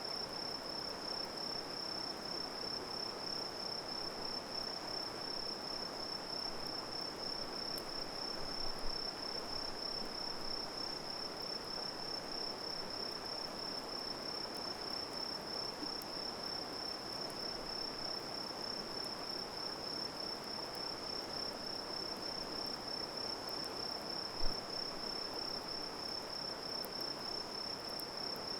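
Insects trilling steadily on one high note over an even hiss, with a couple of brief pops from the campfire, about 9 and 24 seconds in.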